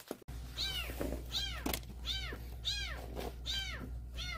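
A kitten meowing over and over, about six high, arching cries roughly 0.7 s apart, over a steady low hum.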